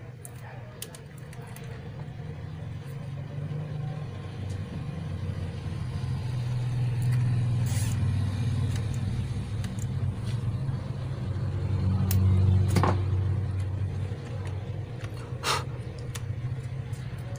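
Low motor-vehicle engine rumble that swells and fades twice, like vehicles passing. A few sharp clicks come over it from the TV's ribbon cable and wiring being handled.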